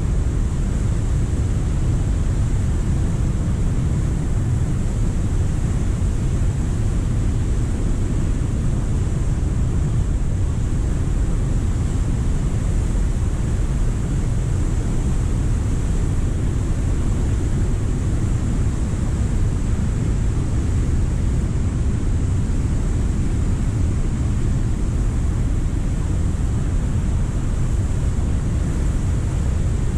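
Flooded waterfall: a steady, deep rumble of high water pouring over the falls, unbroken throughout.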